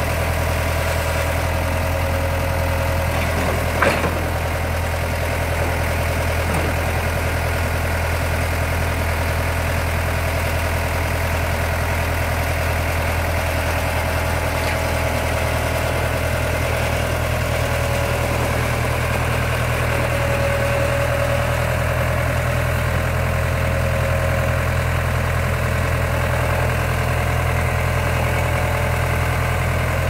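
Case 1845C skid steer's diesel engine running steadily while its loader arms lift a walk-behind mower, with one sharp clank about four seconds in.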